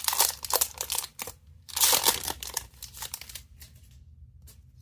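A Magic: The Gathering booster pack's plastic wrapper crinkling and tearing as it is opened, busy for about the first two seconds, then thinning to a few faint rustles.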